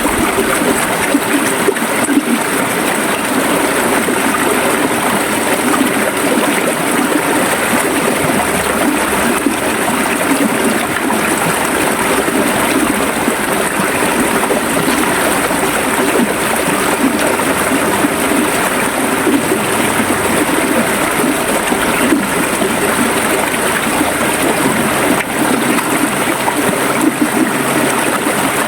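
River water flowing over rocks, a steady loud rush with gurgling and trickling.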